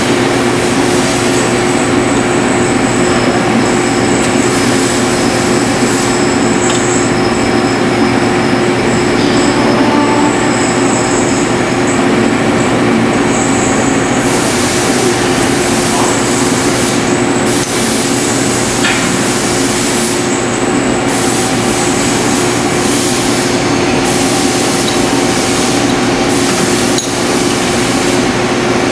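Metal lathe running steadily, with a steady hum and a high thin whine that comes and goes.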